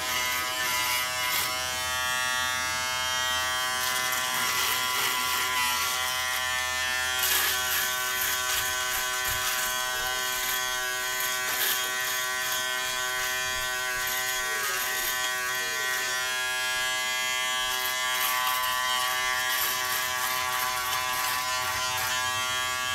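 Remington Wetech PF7580 foil shaver running with a steady buzz as it is drawn over stubble on the jaw and neck, with scattered faint crackles.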